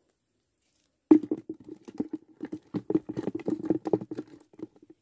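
Freshly caught climbing perch (betok) flapping: a quick, irregular run of taps and thuds that starts about a second in and dies away near the end.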